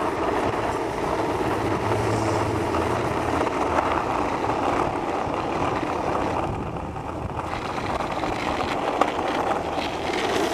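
Skateboard wheels rolling steadily over street asphalt, with one sharp tick near the end.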